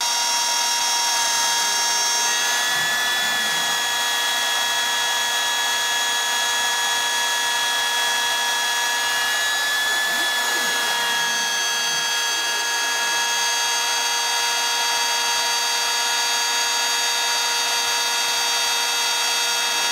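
Trim router used as a CNC spindle, running at high speed with a steady high-pitched motor whine while its bit mills a small workpiece; the pitch shifts slightly a couple of times as the load changes.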